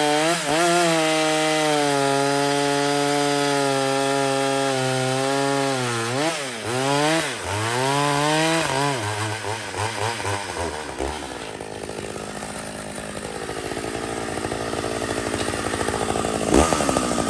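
Jonsered Super 920 two-stroke chainsaw at full throttle cutting into a log, its pitch holding steady, then dipping and recovering several times about six to nine seconds in. From about eleven seconds it runs at a lower speed, with a short loud spike near the end.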